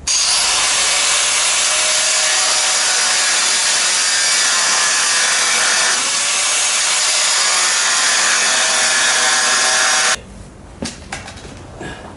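Plasma cutter cutting through a steel truck frame rail: a loud, steady hiss for about ten seconds that cuts off suddenly.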